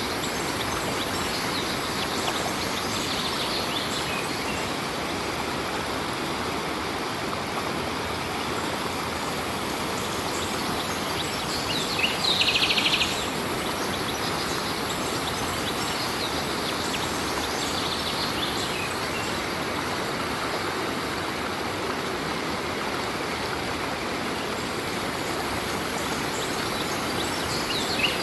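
Stream water running with a steady, even rush. A few birds chirp over it, the loudest call coming about twelve seconds in and lasting about a second.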